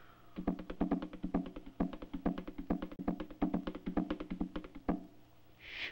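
Hand percussion beaten in a fast run of sharp knocks, about six or seven strokes a second, then a short hiss near the end.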